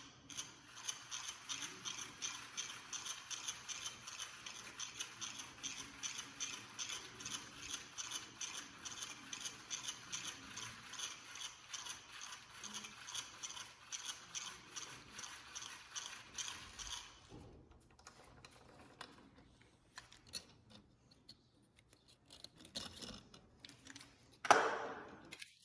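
Geared hand winder turning to wind a model helicopter's rubber band, with a fast, steady clicking of its gears that stops about 17 seconds in. Scattered handling noises follow, then one brief, louder noise near the end.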